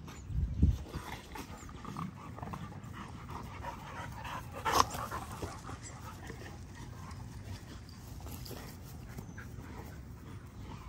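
Young XL bully dogs play-fighting, the sounds of the dogs tussling. A loud dull thump comes just under a second in, and a short sharp sound about five seconds in.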